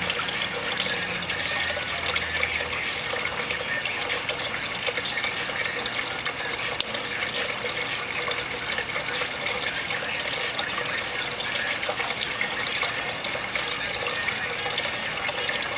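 Water running steadily from a sink tap.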